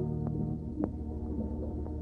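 The tail of an organ music bridge: a held chord fades out under a steady low hum, with a few sharp clicks.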